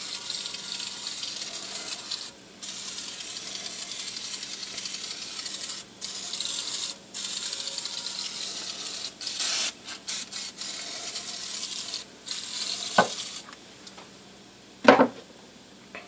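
Aerosol oven cleaner spraying onto a cast iron pan: a steady hiss in long bursts with brief pauses, then a few short spurts, stopping about thirteen seconds in. A sharp knock follows a couple of seconds later.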